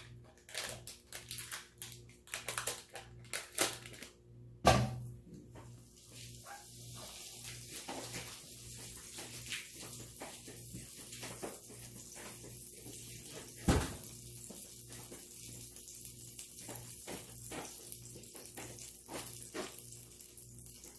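A single thud about five seconds in, then a kitchen tap running steadily, with one sharp knock midway.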